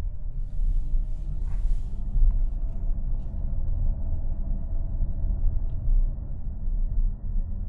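2025 Hyundai Santa Fe driving: a steady low rumble of engine and road noise with a faint hum that drifts slightly up and down in pitch.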